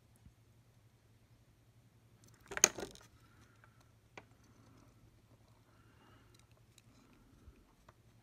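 Handling of a cordless soldering iron's opened plastic housing and its small parts: a brief clatter of small hard pieces knocking together about two and a half seconds in, a single sharp click about a second later, then a few faint ticks.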